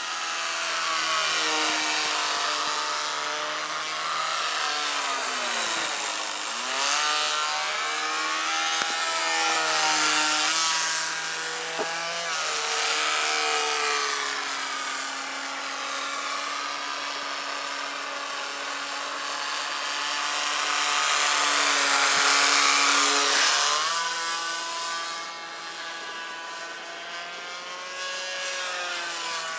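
Radio-controlled model Cessna 182 flying overhead, its motor and propeller making a steady buzzing whine. The pitch drops sharply about six seconds in and rises and falls several more times as the plane passes and the throttle changes. It grows louder on the closer passes.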